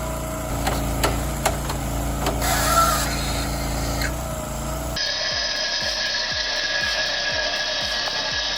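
Machinery running with several sharp cracks and knocks in the first half. About five seconds in there is an abrupt switch to a steady high-pitched motor whine, likely a power tool such as a chainsaw, with a regular low pulsing under it.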